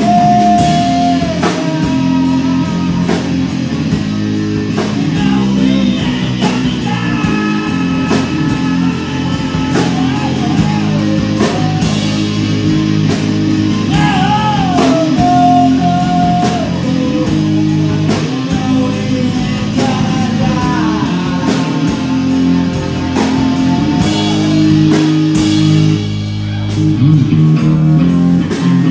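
Live rock band playing loud through a PA: distorted electric guitar, bass guitar and drum kit, with a singer's vocal over them.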